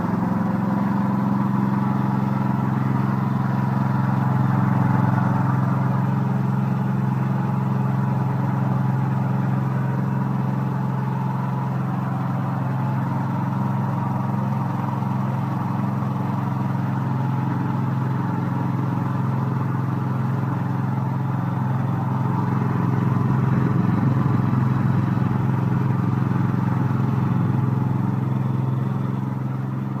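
A 15-horsepower electric-start engine running steadily at a constant speed, growing a little louder twice.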